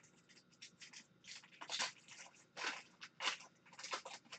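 Wrapper of an Upper Deck Tim Hortons hockey card pack crinkling and tearing as it is ripped open and the cards are pulled out: a quick, irregular string of short crackles.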